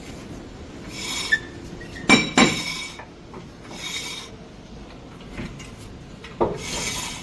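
Metal scraping and clanking: several rasping scrapes with a metallic ring, and two sharp clanks in quick succession about two seconds in.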